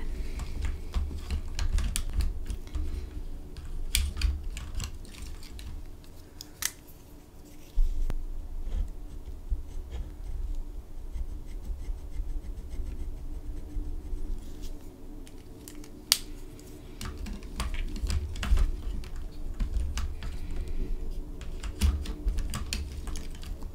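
Gel pens scribbling small colour swatches onto a sheet of paper on a desk, giving a low rubbing from the paper and desk. Scattered sharp plastic clicks come from pen caps and from pens being taken out of their plastic case.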